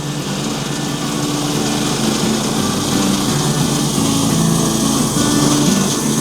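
Portable bandsaw sawmill's small gasoline engine running steadily at speed, with the hiss of the band blade running, as a cedar log is milled into a post.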